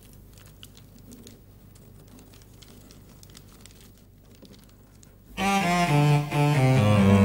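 Quiet room tone with a few faint ticks, then about five seconds in, background score music comes in abruptly: low bowed strings stepping down in pitch under higher held notes.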